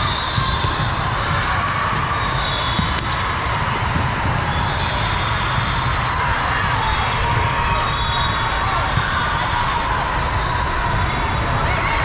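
Volleyballs being hit and bouncing on a hard court floor, sharp single knocks scattered through a steady hubbub of many players and spectators. Short high steady tones sound every few seconds.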